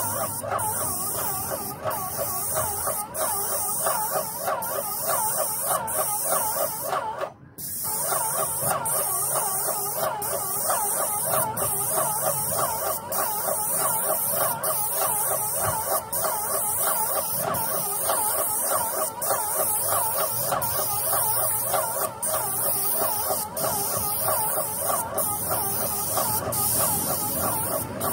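Paint spray gun hissing steadily as coating is sprayed onto a metal roof, the hiss pulsing a little more than once a second. A warbling mid-pitched sound runs underneath. The sound cuts out briefly about seven seconds in.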